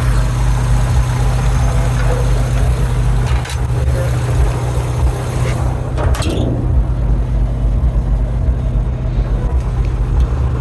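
Nissan 200SX S12's CA20E four-cylinder engine idling steadily, just after its distributor was reinstalled and the ignition timing set. A couple of brief knocks about three and a half and six seconds in.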